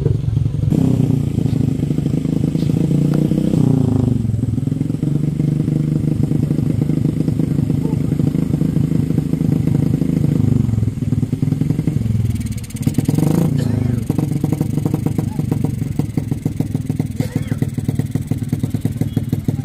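A small engine running close by, revving up and dropping back in the first few seconds and again about two-thirds of the way through.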